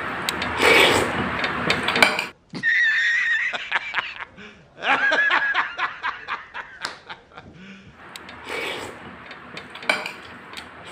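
A man laughing heartily in an inserted film clip, a rhythmic run of ha-ha pulses, starting just after an abrupt cut about two seconds in. Quieter eating clicks follow near the end.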